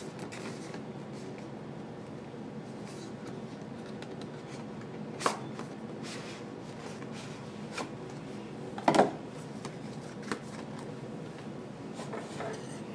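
Cardboard retail packaging handled by hand: a printed sleeve slid off a black inner box, with low rustling and two sharper knocks, one about five seconds in and a louder one about nine seconds in.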